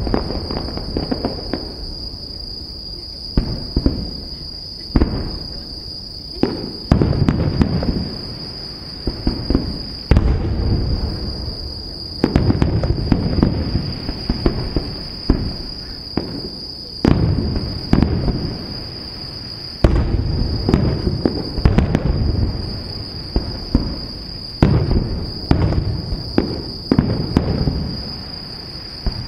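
Aerial firework shells bursting one after another, every one to three seconds, each a deep boom trailing off over a second or two. Under them runs a steady, high-pitched insect trill.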